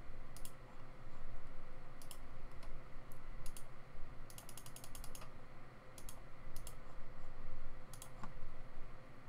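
Computer keyboard clicks: scattered key presses, with a quick run of about eight near the middle, over a faint steady hum.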